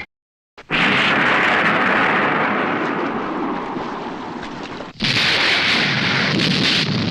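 Two explosion sound effects from a Showa-era Ultraman film. Each starts suddenly as a blast of noise and slowly dies away over several seconds; the second begins about five seconds in.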